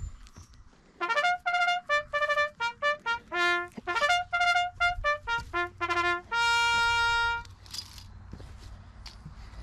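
Military-style bugle call played on a trumpet: a quick run of short, separately tongued notes on a few pitches, starting about a second in and ending on one long held note.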